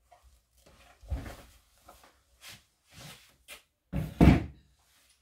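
A series of knocks and bumps from hands on a wooden tabletop, with one louder thump about a second in and the loudest double thump about four seconds in.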